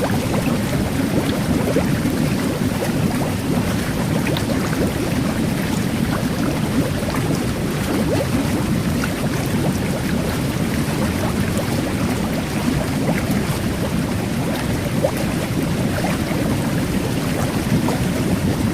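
Jet bath running, a steady low rush of churning water and air, with fine fizzing bubbles from carbonated water popping in tiny clicks throughout.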